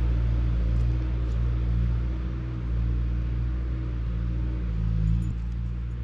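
An engine running steadily with a low droning hum that swells briefly about five seconds in.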